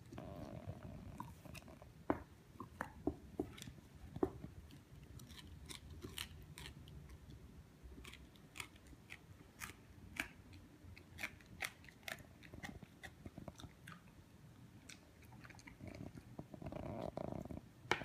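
Pembroke Welsh corgi gnawing and chewing a bully stick, with irregular crunching and clicking bites. The loudest bites come in the first few seconds.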